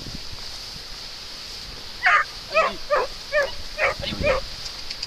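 A dog yelping while following a wild boar scent trail: six short, high yelps, each falling in pitch, about half a second apart, starting about two seconds in.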